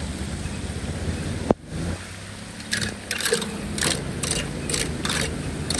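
Floodwater rushing down through a street storm-drain grate. A sharp click comes about a second and a half in, then a small hand rake scrapes and splashes across the grate, about six quick strokes, roughly two a second.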